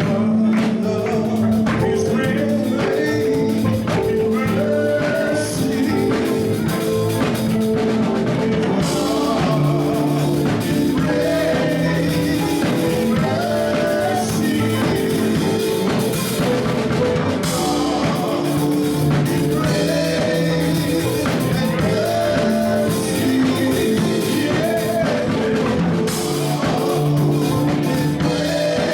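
Band music with a drum kit, held chords changing every few seconds, and a singing voice over it.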